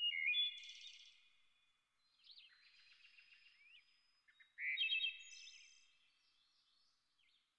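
Small songbirds singing: high chirps, trills and whistled phrases, with two louder bursts of song, one at the start and one about halfway through, and softer chirping between.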